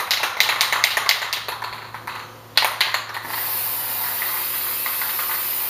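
Aerosol can of spray lacquer: the mixing ball rattling rapidly as the can is shaken, then, after a short pause, the nozzle is pressed and a steady spray hiss starts about three seconds in.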